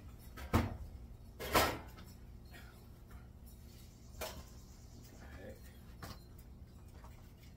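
Tools and scrap parts knocked and set down on a work surface during a search: two loud clattering knocks about half a second and a second and a half in, then a few lighter clicks.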